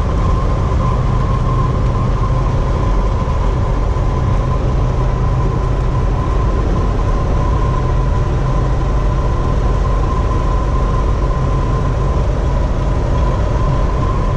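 Cab noise of a mid-1980s Chevy P30-chassis motorhome under way: a steady engine and road rumble with a steady high tone above it. The ride is smooth, its wheels fitted with Centramatic dynamic balancers, and the vibration is almost gone.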